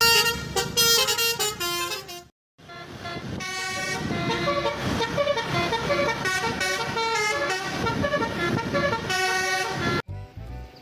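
Vehicle horn sounding a tune of changing notes, with a short break about two seconds in, cutting off sharply near the end.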